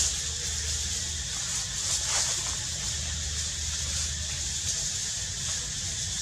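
Steady outdoor background: a constant high hiss and a low rumble, with no distinct event.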